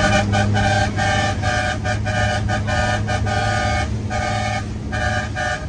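Truck horn sounded in a quick rhythmic run of short and long blasts at one steady pitch, stopping shortly before the end, over the steady drone of the truck's engine.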